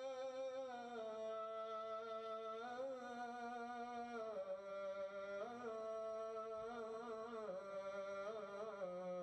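Quiet, slow background music: a single melody line held on long notes that step down in pitch, with small wavering turns between them.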